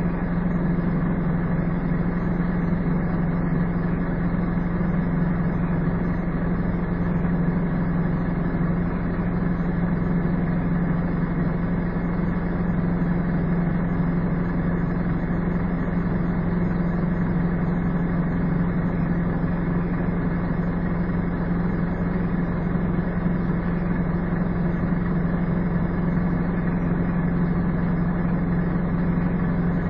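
Scania N230UD double-decker bus's five-cylinder diesel engine running steadily, a constant low drone with no revving.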